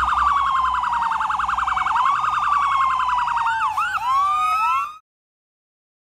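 Electronic emergency-vehicle sirens sounding together: one slow wail gliding down in pitch over a fast, rapidly repeating warble, changing to quick sweeping yelps near the end. The sound cuts off abruptly about five seconds in.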